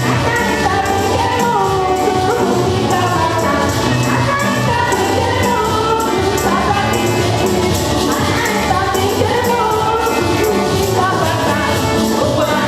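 A group of voices singing a gospel song together, loud and steady, over a steady beat with jingling percussion.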